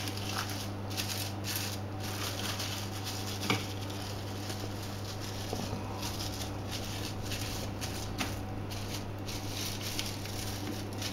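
Plastic cling film crinkling and rustling as hands press and smooth it down over a salt-covered salmon fillet on a metal baking tray, with a steady low hum underneath. One sharper tap stands out about three and a half seconds in.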